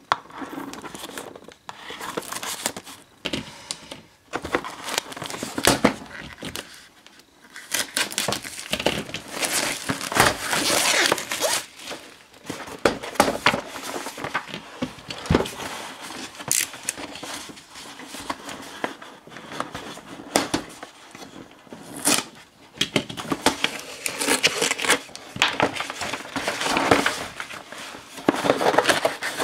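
Plastic wrapping crinkling and tearing and cardboard packaging being handled and slid about: irregular rustles and scrapes with occasional sharp clicks.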